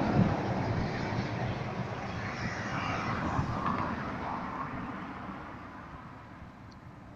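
A vehicle passing on the road, its noise fading steadily away.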